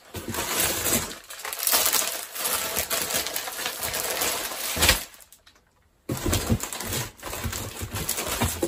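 Crinkling and rustling of stiff plastic packaging as packs of braiding hair are handled and shuffled. It breaks off for about a second partway through, then starts again suddenly.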